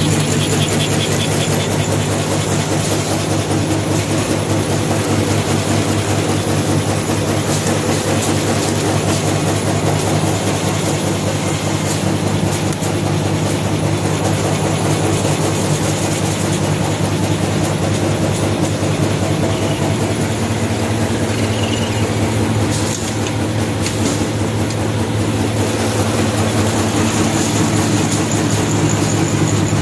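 High-speed paper-straw wrapping machine (Azone AZ-SP300) running steadily: a continuous fast mechanical clatter over a low hum, the speed holding even.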